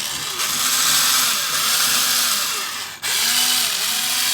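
Hitachi 9.6 V cordless drill run free at high speed on a 12 V battery: a loud, steady motor whir. It cuts out briefly about three seconds in as the trigger is let go, then starts again.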